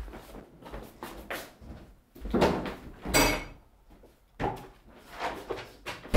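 Kitchen worktop clatter: a run of knocks and short rustles as things are picked up, moved and set down on the counter, with a louder noisy scrape about three seconds in and a sharp knock at the end.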